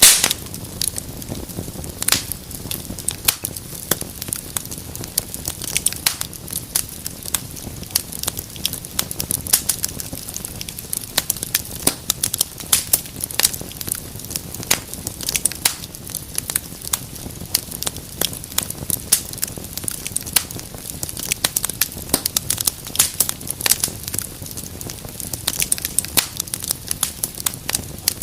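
Wood fire burning in a fireplace, crackling and popping with many sharp irregular snaps over a low steady rumble of the flames.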